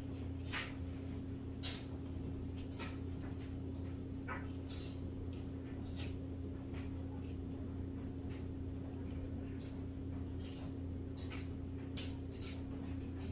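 Scattered short plastic clicks and scrapes as a canless LED recessed light's trim is pushed and worked up into its ceiling hole against its spring clips, over a steady low hum.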